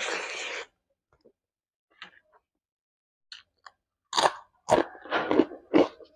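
Close-miked eating sounds of a person chewing a hand-fed mouthful of rice and fried egg: a short burst as the food goes in at the start, a few faint mouth clicks, then about four loud chewing strokes in quick succession from about four seconds in.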